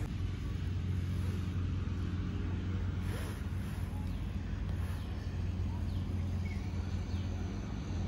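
A steady low hum of an engine or motor running at an even speed.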